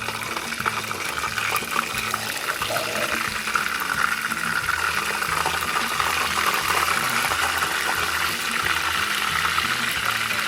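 Chicken quarter legs frying in hot oil on high heat, a loud, steady sizzle. This is the final high-heat fry that crisps the skin.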